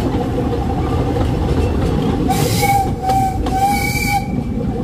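Narrow-gauge steam locomotive's whistle blown three times about halfway through, the last blast the longest, over the steady rumble and rail clatter of the train running, heard from an open carriage just behind the engine.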